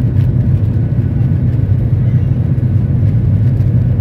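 Jet airliner heard from inside the cabin on its takeoff roll: engines at takeoff thrust with the wheels running down the runway, a steady, loud low rumble.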